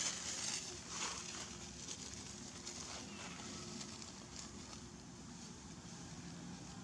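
Dry fallen leaves rustling and crackling as a macaque scrambles across them, in a few short bursts over the first second or so, then only a faint steady background.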